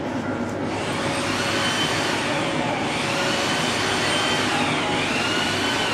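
Steady mechanical whirring noise, with a faint tone above it that rises and falls about once a second.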